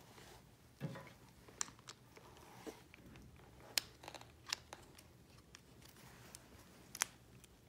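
Scattered light clicks and rustling of hands handling a plastic Neat Freak Keeper lanyard-management device and climbing rope as the line and sheaves are fitted into it. The sharpest click comes about seven seconds in.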